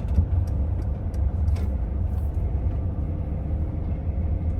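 A 2022 Winnebago Revel camper van rolling slowly along: a steady low road-and-engine rumble with faint light ticks and rattles.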